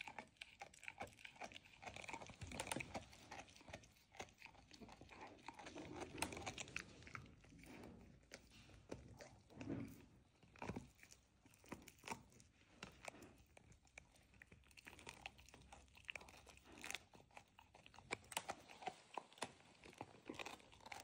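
Faint, irregular crunching and clicking of a pet's teeth chewing on something hard, with louder bursts of bites now and then.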